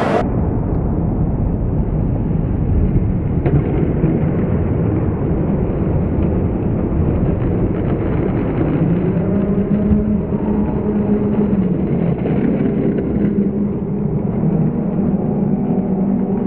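Skateboard wheels and deck rumbling over a concrete bowl and along its rough coping in a long boardslide: a steady rumble with a faint drawn-out grinding note in the second half.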